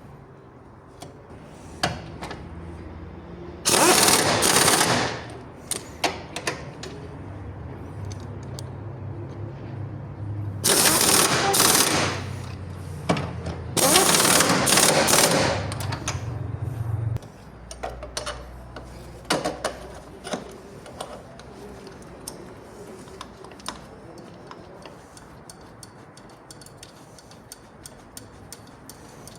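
Impact wrench run in three bursts of one to two seconds each, rattling fast as it works on mount bolts. A steady low hum runs beneath and cuts off suddenly about two-thirds of the way in, with scattered clicks and knocks of tools.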